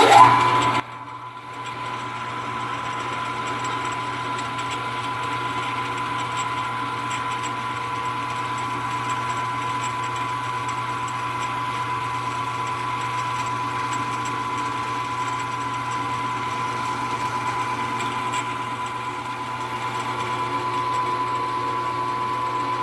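Small benchtop machine tool running at a steady speed, its motor and drive giving a constant whine over a low hum.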